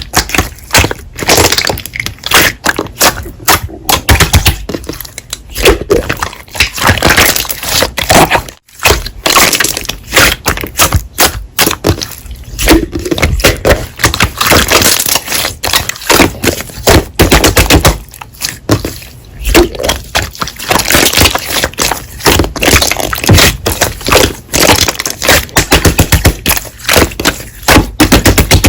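Slime being squeezed, pressed and stretched by hand, with loud, dense crackling and popping throughout.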